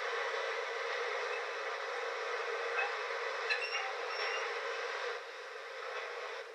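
Train passing on the line: a steady rush of noise with a few brief high tones in the middle, dropping away near the end.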